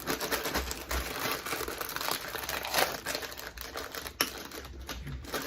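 Plastic snack bag crinkling and crackling as it is handled and opened, with many small rapid crackles.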